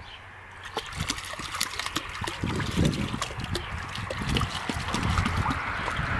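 Water splashing and sloshing in a shallow paddling pool as a rough collie puppy wades and paws through it, in irregular slaps and splashes starting just under a second in.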